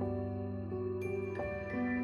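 Soft, slow background music: held notes that step to new pitches every half second or so.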